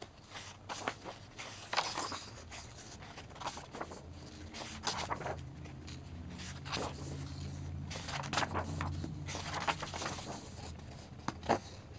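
Paper pages of a softcover workbook being turned by hand, a short rustle and flap with each page, at irregular intervals.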